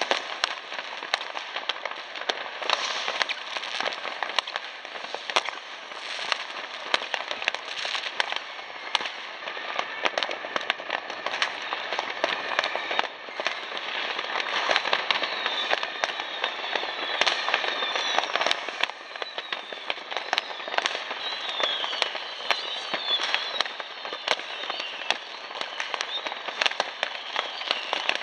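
Fireworks all around: a dense, unbroken crackle of firecrackers (Böller) and rocket bursts, some near and some far. From about halfway in, high whistles glide in pitch among the bangs.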